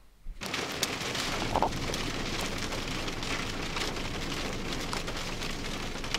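Heavy rain, a dense steady hiss with many small sharp drop hits, starting about half a second in.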